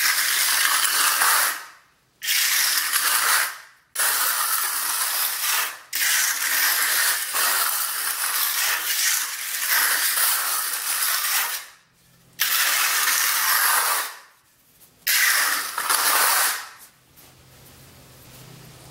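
A hand float scraping across a fresh skim coat of thinset mortar on a concrete floor. It comes in long dragging strokes, each lasting one to several seconds, with brief pauses between them, and stops near the end.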